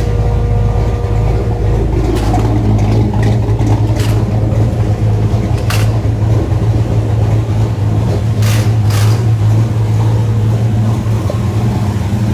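Car engine running steadily with a deep, even hum, with a few short sharp clicks over it.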